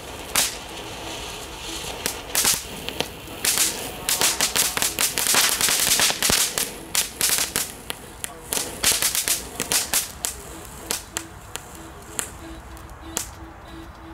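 Kobold ground fountain firework spraying sparks with a hiss and sharp crackling cracks. The cracks come a few at a time at first, thicken into a dense run about four to seven seconds in, then thin out toward the end.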